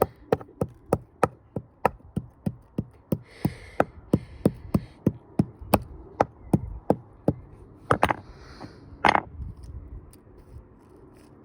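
A stone knocking hard and repeatedly, about three knocks a second, in a washing-machine destruction test. The knocks thin out after about seven seconds, with two louder knocks near the end. The stone is being smashed.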